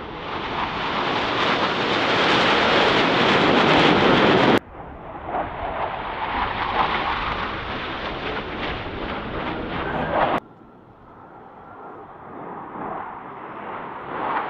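Blue Angels F/A-18 Super Hornet jets passing overhead: a loud jet roar that builds for about four and a half seconds, cuts off suddenly into a second steadier roar, and cuts again about ten seconds in to a quieter roar that slowly builds.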